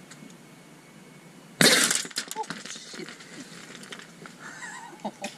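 A sudden loud crash about a second and a half in, followed by a trail of scattered clinks and rattles.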